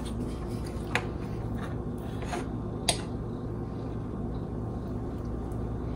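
A few light clicks of a metal fork against a ceramic plate as cake is cut, over a steady low hum.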